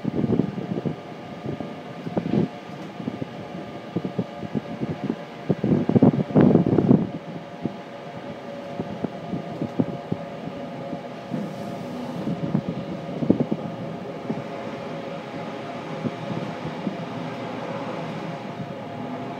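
Ride noise inside a moving train: the wheels knock irregularly over the track, with a louder rumbling stretch about six seconds in. It then settles into steadier running with a faint steady hum.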